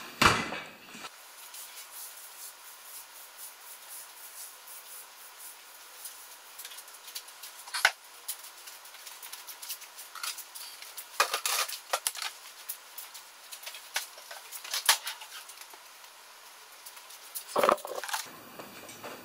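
Intermittent light clatter and sharp knocks from cleaning the garage floor, with the loudest knocks about a second in and near eight seconds, and short clusters of clatter later on.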